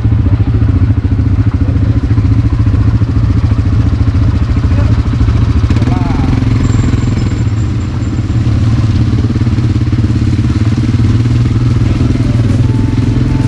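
ATV quad bike engine running steadily under way, with a brief dip in level about eight seconds in.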